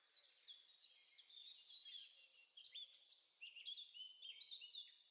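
Faint bird chirping: many quick, falling chirps from several birds at once, overlapping in a dense chorus.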